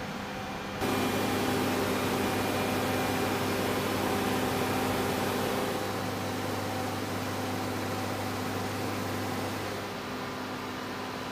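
Steady machinery hum with a hiss over it, the background noise of a working hangar. It jumps louder suddenly about a second in and eases back a little after about six seconds and again near ten.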